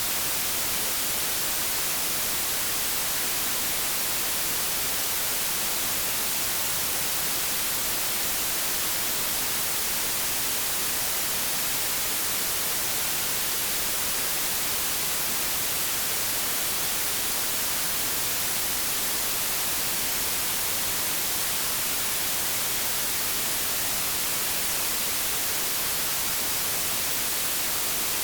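Steady white noise, a constant static hiss like an untuned TV or radio, brighter in the highs and unchanging throughout.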